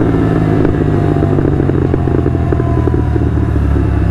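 Royal Enfield 650 parallel-twin with Red Rooster aftermarket exhausts coming off the throttle: the engine note falls slowly while the exhaust crackles and pops rapidly and irregularly. This is the overrun crackle of its Code6 tune.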